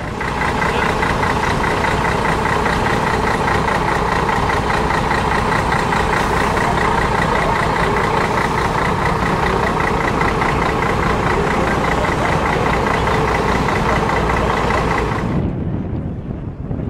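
A vehicle engine running steadily close by with a fast, even rumble, cutting off suddenly near the end.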